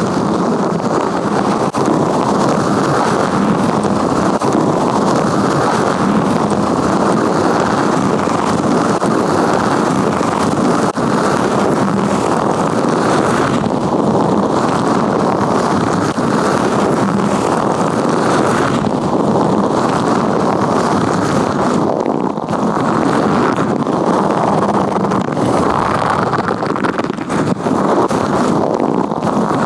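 Latex-gloved hands rubbing and gripping right against the microphone: continuous, loud, muffled rustling and rubbing.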